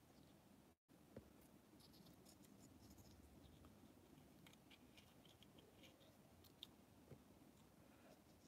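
Faint, scattered snips and scratches of small scissors cutting through the leathery shell of a ball python egg, in an otherwise near-silent room.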